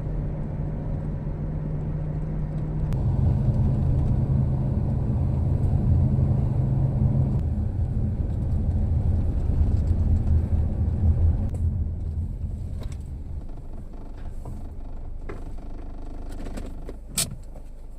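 Nissan X-Trail (T31) being driven: a steady engine and road rumble whose pitch steps up about three seconds in and again a few seconds later, then eases off and quietens from about twelve seconds, with a few sharp clicks near the end.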